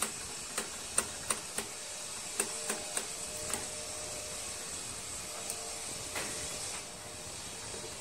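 Small sharp clicks and taps of metal carburetor parts and linkage being handled and fitted on a Tecumseh mower engine, coming thick in the first few seconds and sparse after, over a steady hiss.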